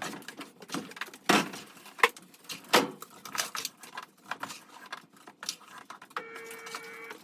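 Plastic clatter and clicks from handling a laundry powder detergent container, with several sharp knocks in the first three seconds, then a held tone lasting about a second near the end.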